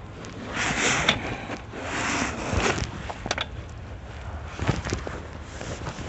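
Rustling and scraping movement noise, with a few sharp clicks about three and five seconds in.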